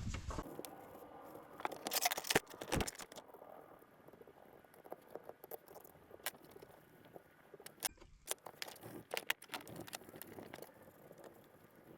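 Small metal parts of an old Penn Monofil fishing reel clicking and clinking as the reel is handled and taken apart, with irregular ticks and a cluster of louder clicks about two seconds in.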